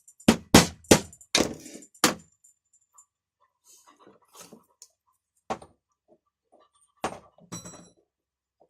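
Hammer blows on metal pressing the ratchet part back into an Ural chainsaw's recoil starter: five sharp knocks in quick succession in the first two seconds, then scattered faint taps and clinks, and two more knocks near the end, the last with a short metallic ring.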